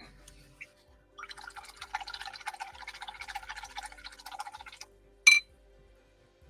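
A quick, continuous rattle of small hard objects lasting about three and a half seconds, then one sharp ringing clink, the loudest sound.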